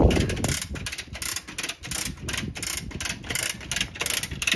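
Chain fall hoist ratcheting under load: its pawl clicks rapidly and evenly, about four clicks a second, with a heavier knock at the start.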